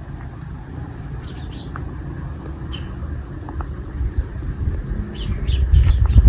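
Small birds chirping in short, scattered high calls, more of them in the second half, over a low rumble that grows louder near the end.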